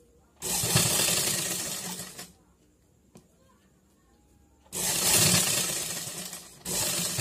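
Domestic sewing machine running in three bursts of stitching of about two seconds each: the first starts about half a second in, and the last two come almost back to back near the end, with quiet pauses between them.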